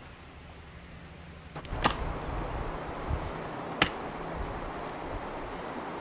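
Chopping strikes of a digging tool cutting into a banana plant as it is dug up: three sharp blows about two seconds apart, with a continuous rustling noise between them from a couple of seconds in.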